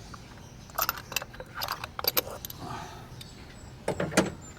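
Irregular metallic clinks and clicks of a ratchet and spark-plug socket being handled over the engine: a cluster of light clatters, then two sharper clinks near the end.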